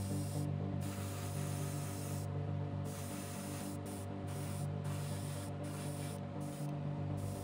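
Airbrush spraying paint in repeated passes, a steady hiss that breaks off briefly several times as the trigger is let go, over a steady low hum.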